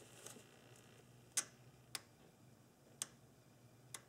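EGRC solenoid valve's plunger clicking as battery voltage is switched to its coil through jumper leads, four sharp clicks at uneven intervals. The clicking shows the valve is working correctly.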